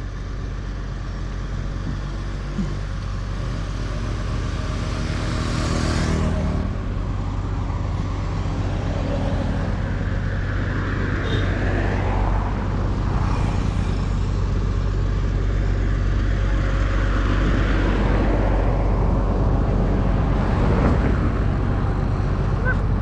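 Road traffic: motor vehicles passing one after another, one about six seconds in and more later, over a steady low rumble.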